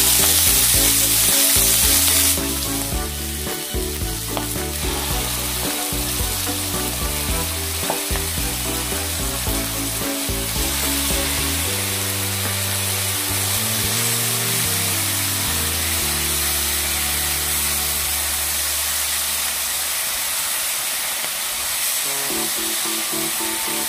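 Food sizzling in a frying pan while sliced aged kimchi, mushrooms and bacon are stir-fried with a silicone spatula, with a few knocks of the spatula against the pan. The sizzle is loudest for about the first two seconds, then quieter.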